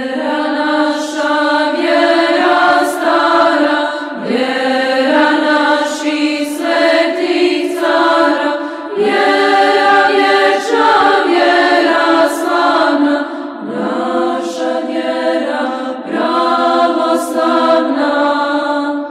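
An Orthodox church choir chanting in several voice parts, in sustained phrases of four or five seconds each.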